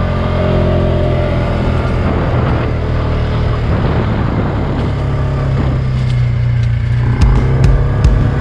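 Farm motorbike engine running steadily.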